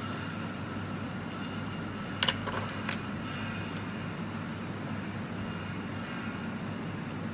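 Stainless steel watch bracelet's fold-over clasp clicking as it is snapped shut: a few light metal clicks, then two sharp clicks close together, over a steady low background rumble.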